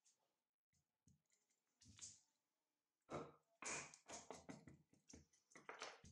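Fixed-blade knife cutting and splitting fatwood on a wooden board: a few separate faint scrapes and knocks, then from about three seconds in a quick run of short scraping cuts.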